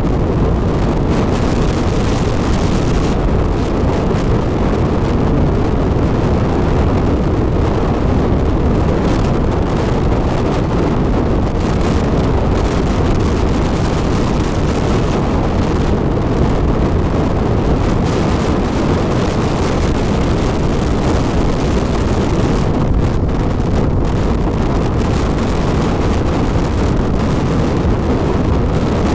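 Steady wind rush and road noise on the microphone of a Hero XPulse 200 motorcycle riding at speed.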